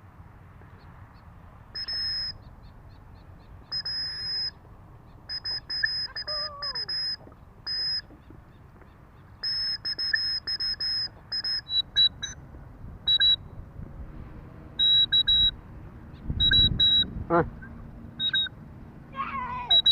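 White-breasted woodswallow (kekep babi) giving runs of short, harsh, nasal calls, the notes a little lower from about halfway. A brief low rumble comes about three quarters of the way through.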